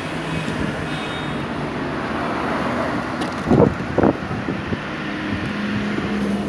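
Road traffic noise: a steady wash of passing vehicles, with two short louder sounds a little past halfway and a steady engine hum setting in near the end.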